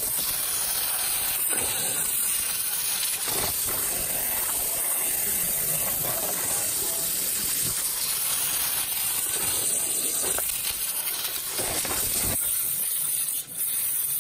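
High-pressure waterjet stream hissing steadily as it cuts into a rugged smartphone.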